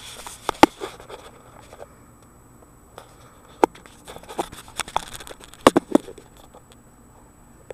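Handling noise from an air rifle and its thermal scope being moved and aimed: a scatter of sharp clicks and knocks with light scraping, most bunched about half a second in and again near six seconds.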